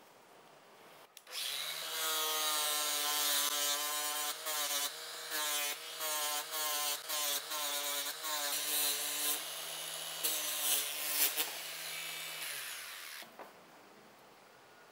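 Angle grinder fitted with a disc pad starts about a second in and runs, its pitch dipping again and again as the disc is pressed onto the steel knife blade, with bursts of scratchy hiss. Near the end it is switched off and winds down.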